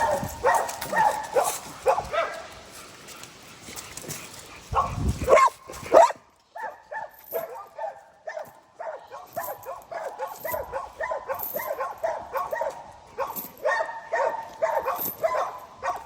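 Pit bulls barking and yipping, with a quick unbroken run of short yips through the second half.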